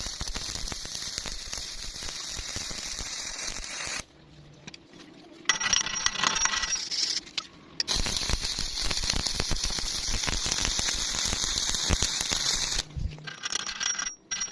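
Electric arc welding: the arc's steady crackle in two long runs of about four and five seconds. Between them are a short pause and a briefer, more uneven burst.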